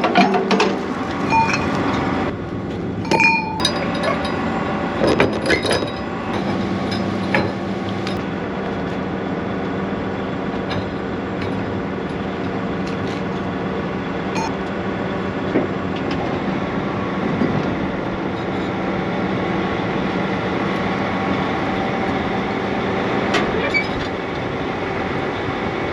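An engine running steadily at a constant speed, with a few sharp metallic clinks and knocks in the first several seconds.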